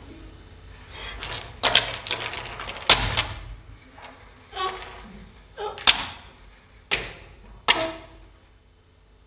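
A series of sharp knocks and clinks of small hard objects, about six of them, some ringing briefly after the strike.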